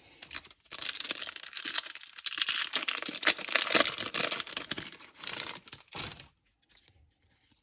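A Topps Chrome trading card pack's foil wrapper being torn open and crinkled, with dense crackling for about five seconds that stops near the end.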